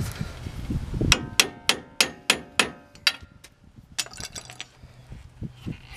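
Hammer striking metal to drive the strut's lower mounting bolt through the lower control arm: a quick run of about six ringing strikes, about three a second, then a few lighter taps about a second later.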